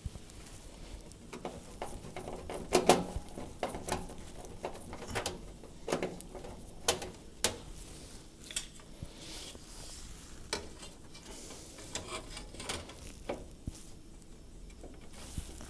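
Irregular metallic clicks, taps and clinks from screws being taken out and metal trim parts handled on a range cooker.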